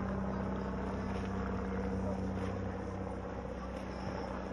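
A steady low mechanical hum over an even outdoor background noise.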